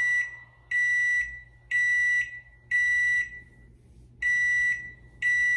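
Microwave oven beeping its alert: a string of high-pitched beeps, each about half a second long, roughly one a second, with one beat skipped near the middle.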